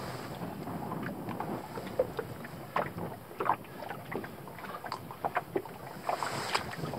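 Small choppy waves slapping irregularly against the side of a wooden freighter canoe, a quick splash every fraction of a second over a steady wash of water noise.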